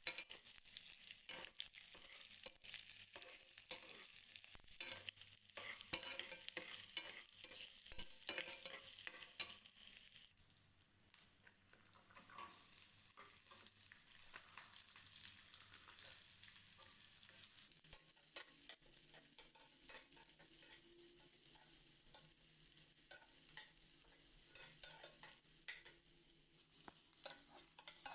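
Food sizzling quietly in a cooking pan while a spoon stirs it, with frequent short scrapes of the spoon against the pan.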